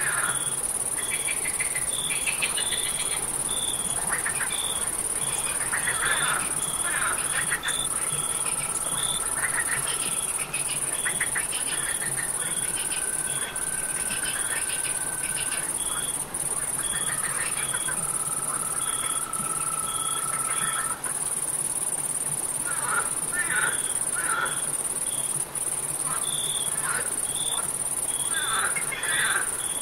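Night chorus of crickets and frogs: a constant high insect hiss, a cricket chirping regularly about twice a second, and frogs calling in short irregular trilling bursts. Three long, steady trills lasting a few seconds each stand out in the middle.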